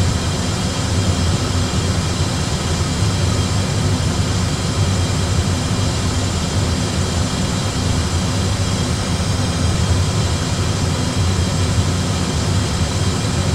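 Steady rumble of Airbus A320 cockpit noise, engines and airflow during a descent, as played by a flight simulator's sound system, with a few faint steady tones above it.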